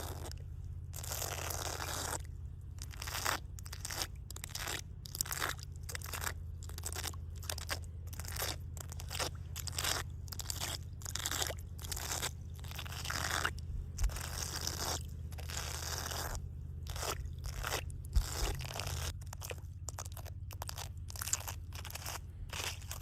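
Water splashing over and over in quick, irregular strokes, about two splashes a second, over a steady low hum.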